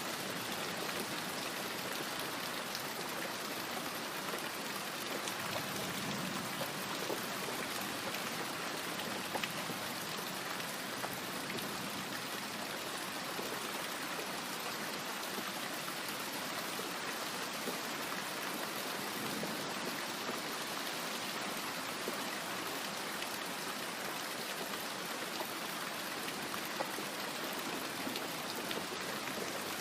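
Steady rain falling: an even hiss with scattered drop ticks and no thunder.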